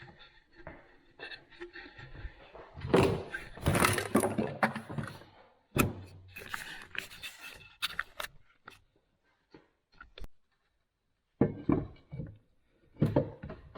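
Metal knocks, clunks and scraping as a freshly greased rod is worked into the body of a Record No. 6 bench vise. The sounds come in irregular clusters, with a quiet spell about two-thirds of the way through.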